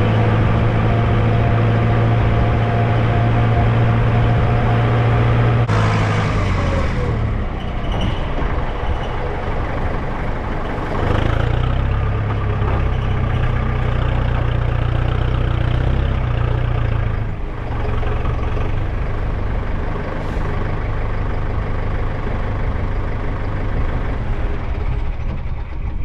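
Kubota loader tractor's diesel engine running under way, a loud steady low drone. The engine note eases off about six seconds in, picks up strongly again around eleven seconds, and eases off again near seventeen seconds.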